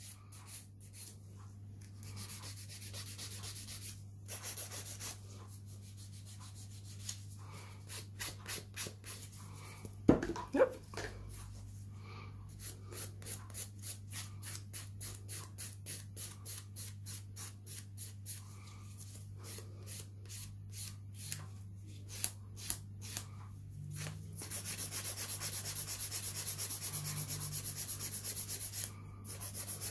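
240-grit hand nail file rasping back and forth over a resin-and-wrap artificial nail, filing off the excess length: quick repeated strokes that run together into faster, louder continuous filing near the end. One short, louder sound comes about ten seconds in.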